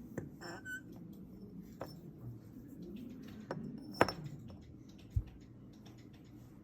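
Scattered small clicks and light knocks of objects being handled, the sharpest click about four seconds in and a dull thump about a second later, over a low steady hum.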